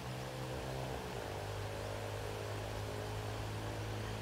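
A motor running steadily, its pitch dropping a little about a second in.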